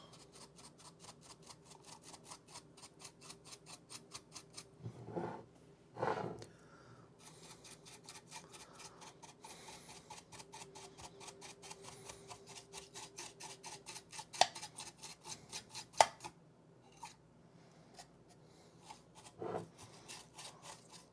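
A dry bristle paintbrush scrubbing inside a tube-amp's sheet-metal chassis, its bristles flicking over wiring and solder lugs in fast, even strokes, about five a second, to knock the dust out. It is faint, with a couple of sharp taps against the metal about two-thirds of the way through.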